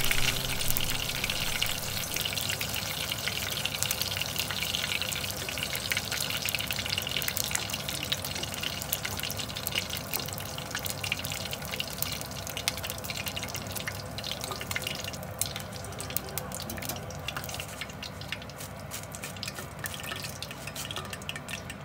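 Battered shrimp deep-frying in hot oil: a steady sizzle with dense fine crackling that thins out somewhat near the end.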